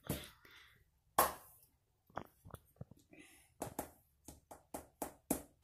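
Plastic measuring cup scooping flour from a stainless steel pot: a knock about a second in, then a run of short knocks and scrapes of the cup against the pot, coming quicker toward the end.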